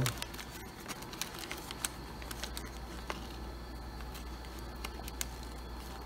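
Light handling noises of plastic medical parts: scattered small clicks and faint crinkles as a breathing-circuit filter is fitted to a test lung, over a low steady hum.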